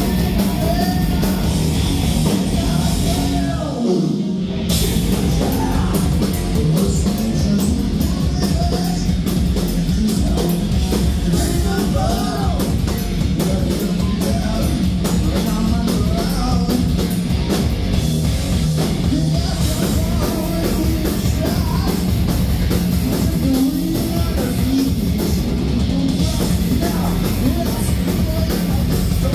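Heavy metal band playing live and loud: electric guitars, bass guitar and drum kit, with a short break in the low end about four seconds in.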